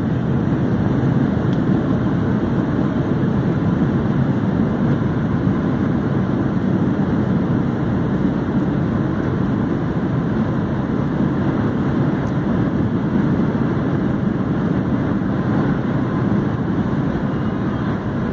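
Loud, steady rush of jet engine and airflow noise heard inside an airliner cabin during the landing roll down the runway.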